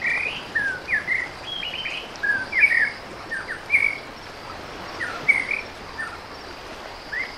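Birds singing: short whistled chirps and trills, sliding up and down, come several times a second over a steady high insect buzz.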